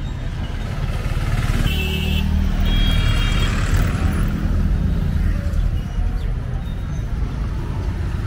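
Street traffic: a motor vehicle's engine runs close by, its rumble growing louder for a few seconds as it passes, with two short high tones about two and three seconds in.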